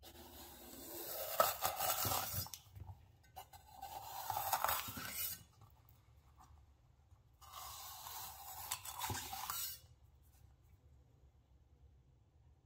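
Knife slicing through a crisp bell pepper on a wooden cutting board, in three crunching cuts of about two seconds each, with a sharp knock about a second and a half in.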